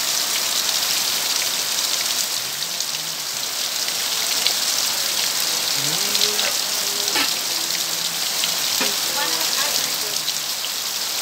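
Heavy rain falling steadily, an even hiss of drops.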